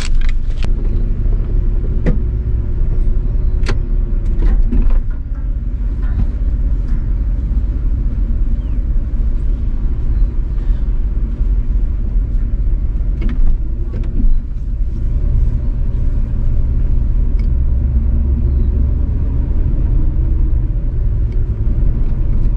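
1973 GMC C2500 pickup's engine running as the truck pulls away and drives, heard inside the cab: a steady low rumble with the engine note rising a couple of times under acceleration. A few sharp clicks in the first five seconds.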